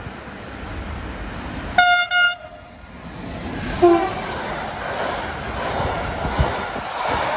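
Train horn sounding two short, high blasts in quick succession, then a brief, lower horn toot about two seconds later. After that comes the steady rumble of freight wagons rolling past on the rails.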